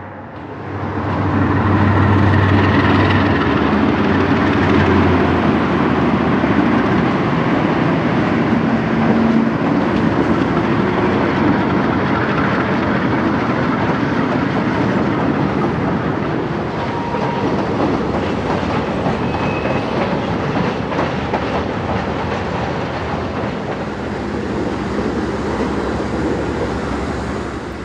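A pair of GE B23-7 diesel-electric locomotives working under load as they haul a long, heavy freight past, their engines strongest in the first few seconds. The train's cars then roll by in a steady rumble, with wheels clacking over the rail joints.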